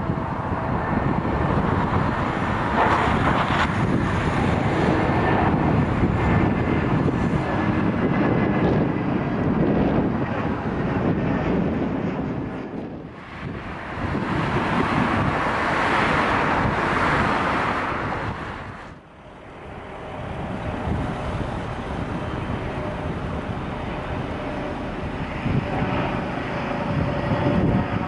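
Airbus A320neo airliner's jet engines on approach to land, a steady jet rumble with wind buffeting the microphone. The sound dips briefly twice, about halfway through and again a few seconds later.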